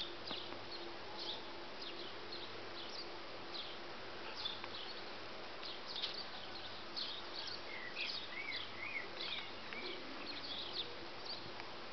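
Outdoor hedgerow ambience: scattered short high chirps, with a short run of rising-and-falling song notes about eight seconds in, over a faint steady low hum.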